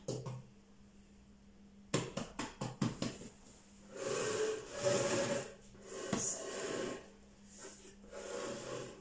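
Thin ghee-greased feteer dough being stretched by hand over a round wooden table. A quick run of light taps comes about two seconds in, then swishing, rubbing sounds as the dough sheet is pulled and slid across the table surface.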